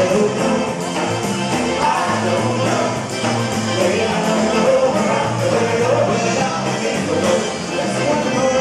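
Live polka band playing an upbeat song, with men singing into microphones over accordion, saxophone, trombone, bass guitar and drums, amplified through a PA in a hall.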